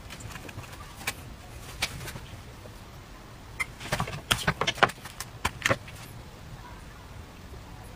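Handling clatter of an electric crepe maker and ceramic dishes: a couple of single clicks, then a quick run of knocks and clinks about four to six seconds in as the pan is lifted from the batter dish and set back down.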